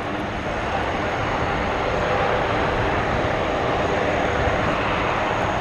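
Aircraft engines running with a steady rushing noise, with a faint high whine held above it.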